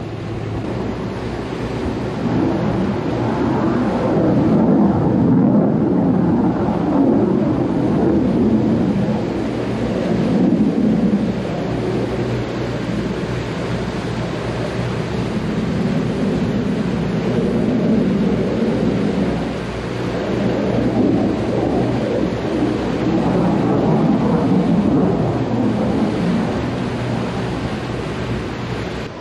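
Wind buffeting the microphone in slow, surging gusts over the steady drone of a 1999 Carver 504 motor yacht's twin engines and the rush of its wake as the boat runs underway.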